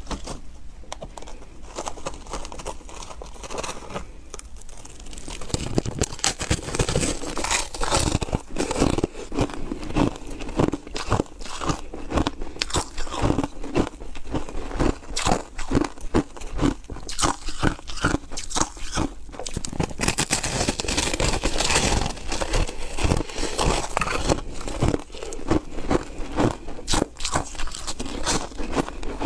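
A person biting and chewing foam ice up close, with rapid crisp crunches. The crunching is lighter and sparser at first, then comes dense and loud from about five seconds in.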